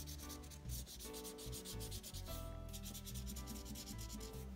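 Felt-tip marker scrubbing back and forth on corrugated cardboard as it colors in, in quick rubbing strokes, with a short break about halfway.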